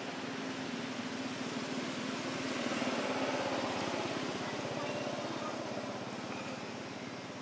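A motor engine running steadily with a low hum, growing a little louder about three seconds in, then easing off slightly toward the end.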